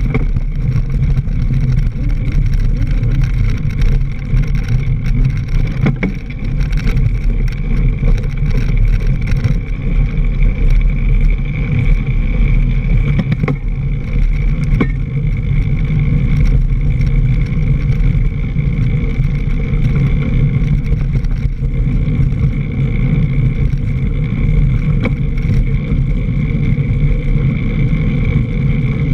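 Continuous rumble of wind and tyre noise from a camera mounted at a mountain bike's front wheel, riding over a dirt trail covered in dry leaves, with a few brief knocks from bumps.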